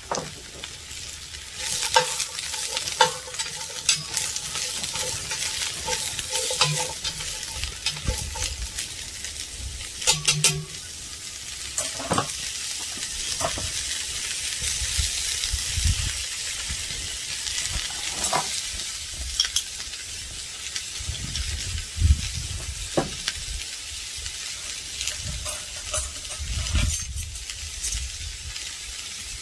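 Chopped soup greens and onions sizzling as they fry in a Dutch oven, stirred with a utensil that scrapes and clicks against the pot now and then.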